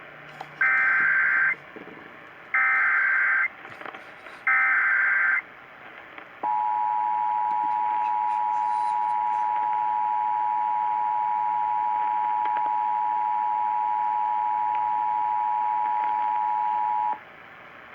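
Emergency Alert System tones on a radio broadcast. Three short bursts of SAME digital header data, each about a second long, come first. They are followed by about ten seconds of the steady two-tone EAS attention signal, which cuts off near the end and announces the emergency alert that follows.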